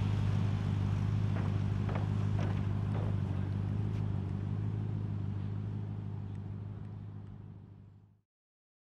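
Car engines idling and moving off at walking pace, a supercar's and a Porsche Cayenne S's, with a steady low engine note and a few faint clicks. The sound fades out over the last couple of seconds and then stops.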